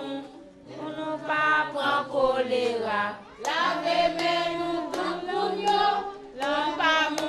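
A group of voices singing together in unison, held notes in short phrases, with a brief pause about three seconds in.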